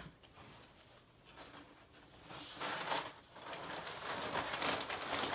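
A large sheet of chart paper rustling and scraping as it is handled and hung on a whiteboard, starting about two seconds in after a quiet start.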